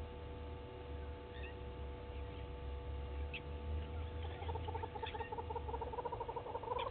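Outdoor animal calls over a steady low rumble: a few short, high chirps, then about two-thirds of the way in a fast pulsing call starts up and grows louder.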